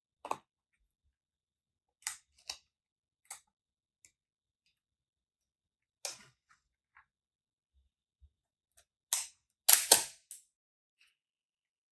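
Olympus OM-1N 35mm SLR being worked by hand: a series of separate mechanical clicks from its controls, then near the end a louder sharp double clack of the shutter firing, followed by a softer click.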